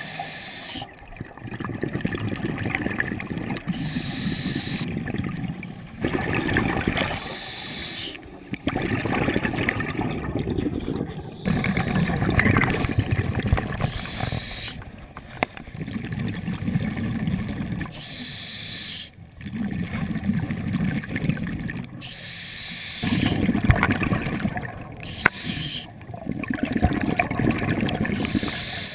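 Scuba diver breathing through a regulator, heard through an underwater camera housing: a low bubbling rumble of exhaled air every three to four seconds, with quieter stretches between breaths.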